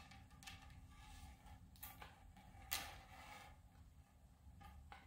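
Faint handling noises from a wooden spinning wheel being assembled: a few light rustles and one sharp knock a little under three seconds in, followed by brief rustling, over a low room hum.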